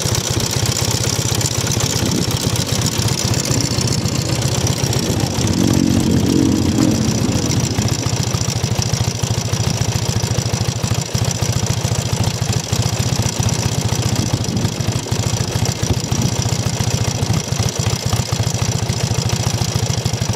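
Honda CB250T Hawk's air-cooled 250 cc parallel-twin engine idling, picking up briefly about five seconds in before settling back. The engine has an abnormal noise, as the uploader notes.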